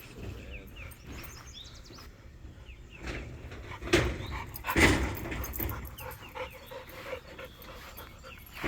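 A dog close by, with two louder sounds from it about four and five seconds in over a quiet rural background.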